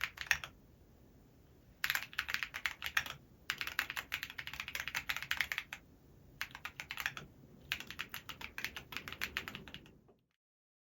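Typing on a TKD Cycle7 custom mechanical keyboard built with Geon Clear switches, a polycarbonate plate and AlephKey keycaps. It comes in several bursts of rapid keystrokes with short pauses between them, and cuts off abruptly near the end.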